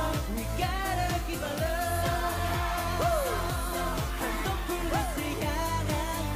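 K-pop song: voices singing over a pop backing track with a steady beat of about two drum strokes a second.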